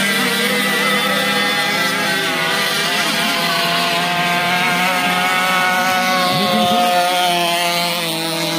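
Radio-controlled racing boats running at full speed on the water, their engines giving a steady, high buzz that shifts in pitch as they pass.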